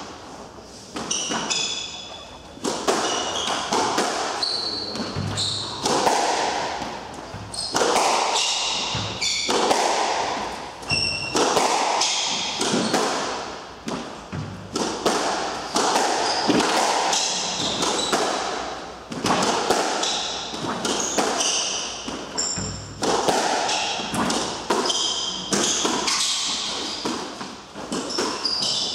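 Squash rally: the ball cracking off rackets and the court walls in a steady run of sharp hits, with short high squeaks of sneakers on the hardwood floor, all echoing in the enclosed court.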